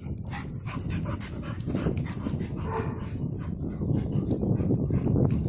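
A pit bull and a bulldog play-fighting: dog vocal noises mixed with scuffling and paws on dirt, continuing throughout with many short sharp knocks.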